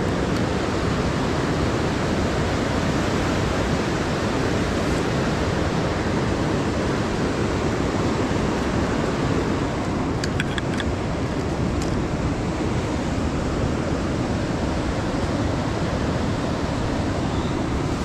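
Steady rush of a fast-flowing river over rocks, with a few light clicks a little past the middle.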